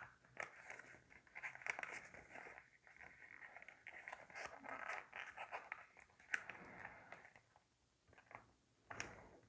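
Faint crinkling and rustling of a square sheet of paper being folded and creased by hand, with a few sharper crackles as the folds are pressed.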